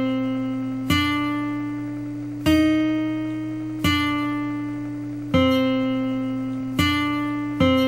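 A guitar plucked one note at a time on a single string, each note ringing and fading, roughly one every second and a half. A steady low drone runs underneath.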